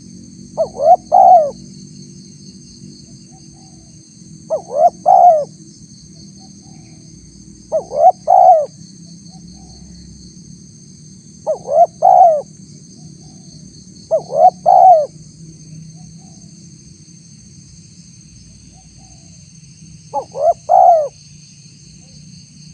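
Spotted dove cooing: six short phrases of a few notes each, a few seconds apart, with a longer gap before the last.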